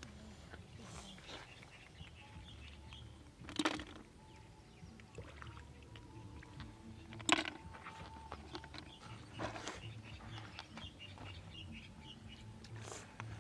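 Hands picking snails out of shallow river water at the bank, with a few short sharp sounds, the loudest nearly four seconds in and about halfway through. Faint bird chirping throughout.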